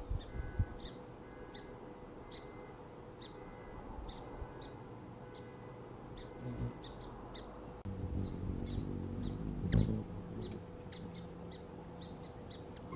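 Bird chirping in short, high chips repeated irregularly about once or twice a second. A low rumble rises about eight seconds in and ends in a sharp knock near the ten-second mark.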